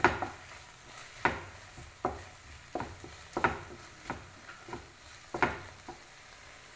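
Wooden spatula stir-frying sliced okra, ivy gourd and onion in a hot oiled pan: about eight scraping strokes, a little under a second apart, over a faint sizzle.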